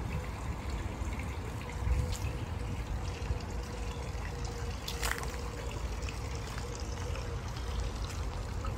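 Garden ambience of a fountain's water trickling, under a low rumble of wind on the microphone. A brief sharp high sound comes about five seconds in.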